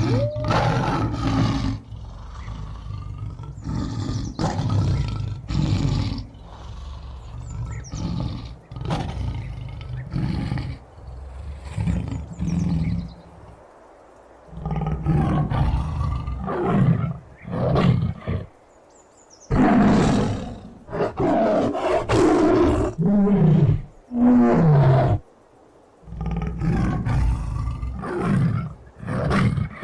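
Tiger roaring over and over: a series of separate loud calls with short pauses between them. The recording is processed as 8D audio, panned around the listener.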